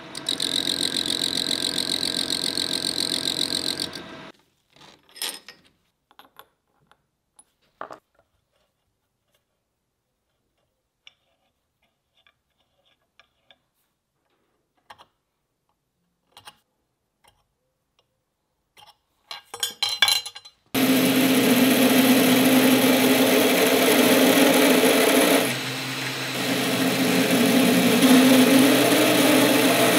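Metal lathe running and cutting a small brass cap nut for about four seconds, then stopping; small metal parts clicking and tapping on a stone surface plate; then from about two-thirds of the way through, a belt grinder running steadily as a small brass part is ground on its belt, briefly easing off once.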